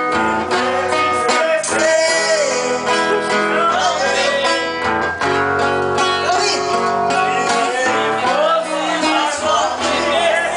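Music: a Brazilian country-style love song with strummed acoustic guitar and a wavering melody line between sung verses.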